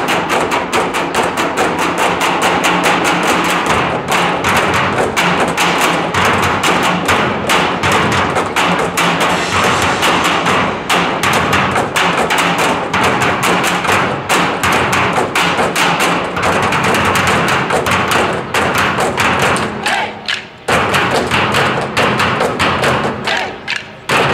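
Percussion ensemble beating a dense, driving rhythm with sticks on steel oil drums and plastic barrels, with a large bass drum and cymbals. The beating drops out briefly about twenty seconds in and again just before the end.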